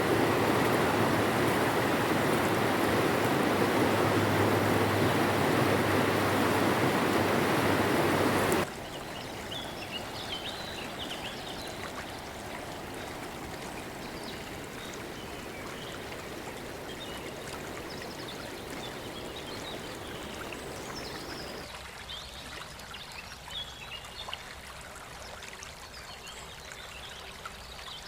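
River water running over stones: a loud, even rush that cuts off abruptly about eight seconds in, then a quieter stream trickling with faint high chirps.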